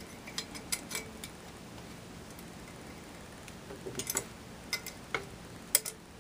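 Light metallic clicks and clinks as a steel ice shaver blade is handled and set into its metal blade holder, a few in the first second and a cluster again from about four seconds in.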